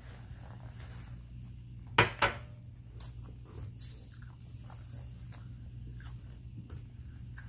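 Close-miked eating of crispy fried food: two loud crunching bites about two seconds in, then quieter chewing and mouth clicks over a steady low hum.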